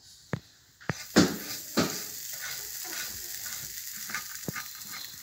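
Hot electric waffle iron sizzling, the hiss setting in about a second in, with a few sharp clicks and knocks, the loudest just after the sizzle begins.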